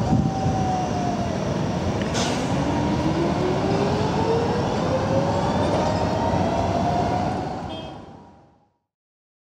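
Low-floor tram pulling away, its traction drive giving a whine that rises steadily in pitch as it accelerates, over steady road-traffic rumble. The sound fades out about eight seconds in.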